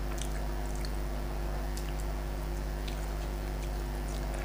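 Faint, scattered wet clicks and squishes of fingers picking apart a piece of fish in curry and of chewing, over a steady low hum.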